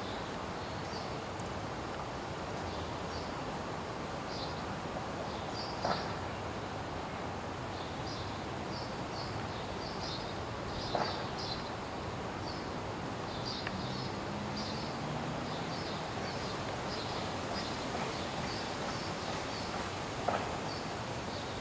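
Outdoor ambience with a steady background hiss and small birds chirping in short, high bursts throughout; three faint clicks stand out briefly.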